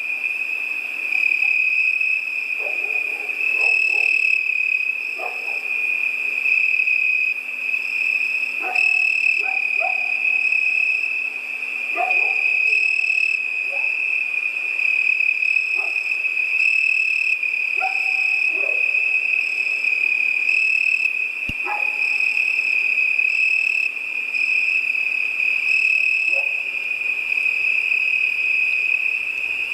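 Night chorus of crickets: a continuous high trill with a second, pulsing insect band above it. Short lower calls break in every second or two.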